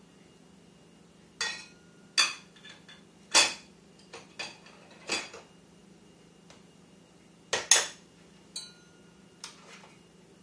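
A toddler banging and clinking metal measuring cups and spoons together and on a plastic booster-seat tray: about ten irregular metallic clinks, each with a short ring, the loudest a quick double clank about three quarters of the way through.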